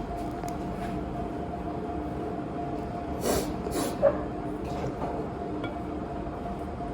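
A steady mechanical hum holding two even tones, with two short hissing bursts about halfway through and a single sharp clink just after them.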